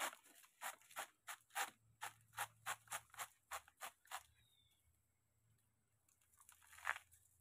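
Large knife cutting into a banana tree's soft, fibrous trunk: about a dozen short strokes, roughly three a second, over the first four seconds, then a brief rustle near the end.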